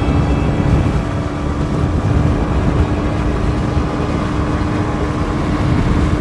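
Kawasaki Ninja 125's single-cylinder engine holding steady high revs while cruising at about 65 mph, heard on board with a constant engine tone over heavy wind rumble.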